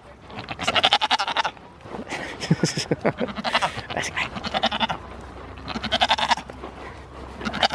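Goats bleating close by, a run of wavering calls about once a second.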